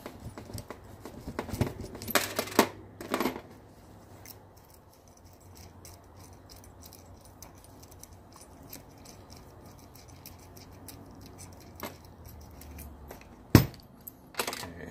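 Small steel bolts and washers clinking against metal and a tabletop as they are taken out of a shifter shaft by hand and set down: a few clicks about two to three seconds in, scattered light ticks, and one sharp metallic click near the end.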